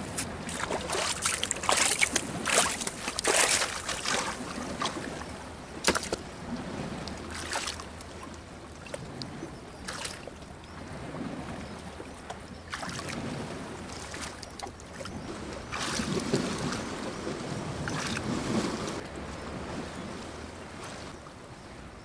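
Shallow seawater lapping and splashing among shoreline rocks, with a person wading and working his hands in it; sharp, frequent splashes in the first six seconds, then a softer, steadier slosh.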